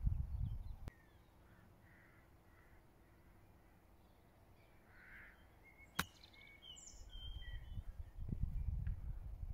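A golf club strikes the ball in a short chip shot: one sharp click about six seconds in. Faint bird calls come before and just after it, and wind rumbles on the microphone near the end.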